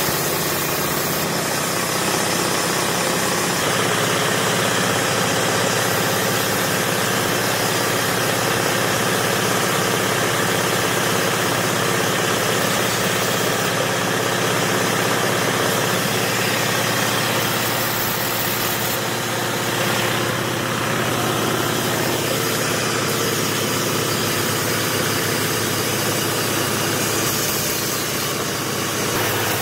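Large band saw with big spoked wheels in a wooden frame running steadily while its blade rips through timber boards.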